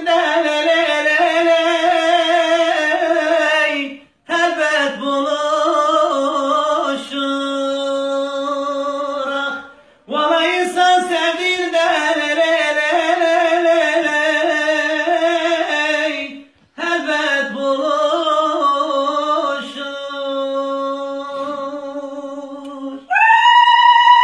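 A man singing a Turkish folk song unaccompanied, in four long phrases of high, held and ornamented notes with short breaks between them. Near the end a steady, unwavering high tone cuts in.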